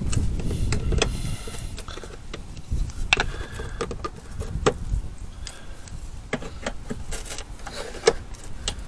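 Plastic push clips on a Subaru WRX STI's front wheel-arch trim being pried out with a small screwdriver-style tool: scattered sharp plastic clicks and snaps, a dozen or so spread unevenly, with low rumbling handling noise in the first second or so.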